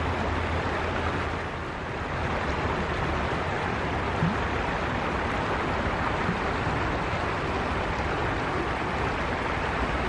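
Shallow forest river flowing over rocky riffles, a steady rushing of water, with one short knock about four seconds in.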